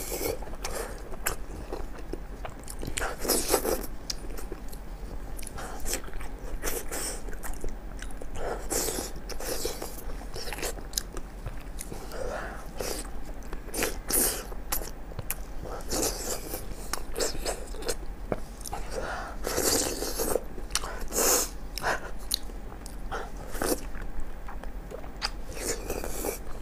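Close-miked eating of chili-sauced offal: wet chewing and biting, with short crisp crunches at irregular moments.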